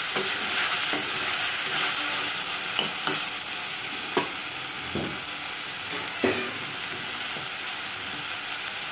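Sliced onions and green chillies sizzling steadily in hot oil in a stainless-steel kadai, stirred with a spatula that clinks and scrapes against the pan a few times.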